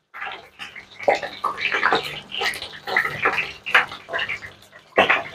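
Chicken pieces frying in hot oil in a pan, sizzling and crackling with irregular spattering pops as metal tongs turn them.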